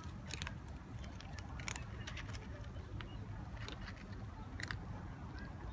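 A group of cats eating at a food dish, with irregular short crunches and clicks of chewing over a steady low rumble.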